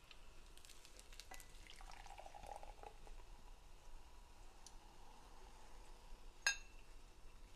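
Fizzy soda poured from a can into a glass, crackling and splashing faintly. A single sharp knock comes near the end.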